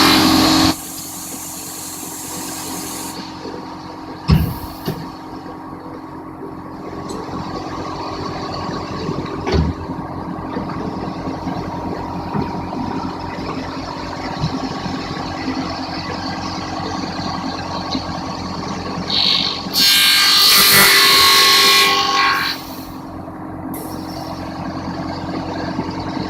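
Milling machine running steadily, cutting into a PVC window profile. The cutting gives a loud, harsh noise at the very start and again for about two and a half seconds near the end, with a couple of sharp knocks in between.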